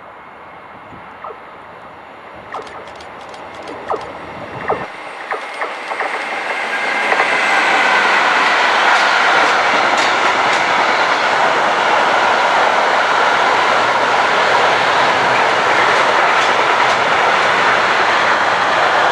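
Container freight train approaching and passing: sharp clicks of wheels over the rails grow over the first several seconds into a steady, loud rolling rumble of container wagons going by. A thin high wheel squeal runs through it.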